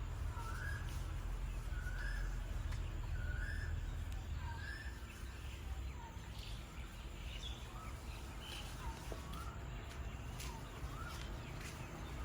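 Puppies whimpering: short, high cries repeated about once a second, fading in the last few seconds, over a steady low rumble, with a few sharp clicks near the end.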